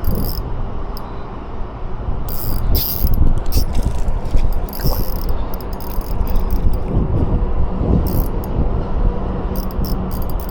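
Spinning fishing reel working in several short bursts of mechanical clicking while a hooked fish is played, over steady wind rumble on the microphone.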